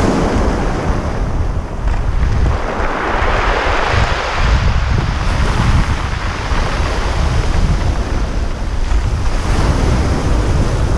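Strong wind buffeting the microphone over surf breaking on the shore, with the wash of a wave swelling and fading a few seconds in.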